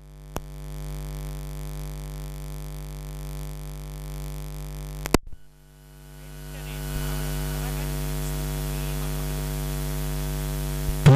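Steady electrical mains hum with a buzz of overtones, with no voice over it. It swells in after a faint click near the start, is broken by a sharp pop about five seconds in, then swells back and holds.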